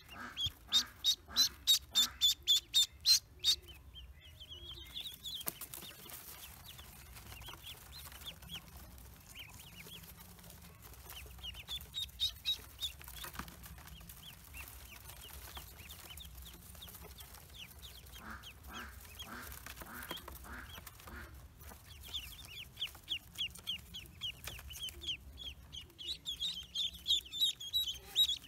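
Pekin ducklings peeping: rapid high-pitched peeps, about five a second, loud at the start and again over the last several seconds, with softer, scattered peeps in between.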